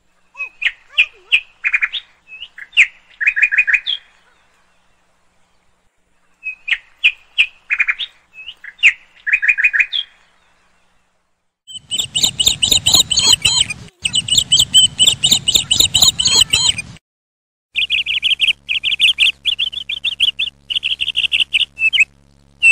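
Birds chirping: two short bursts of high chirps with quiet between them, then from about halfway on nearly continuous chirping over a low rumble.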